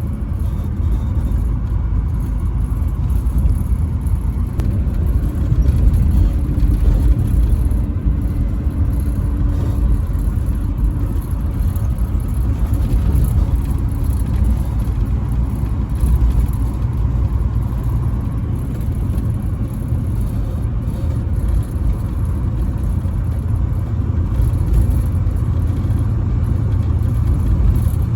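Truck driving on the highway: a steady, continuous low rumble of engine and road noise.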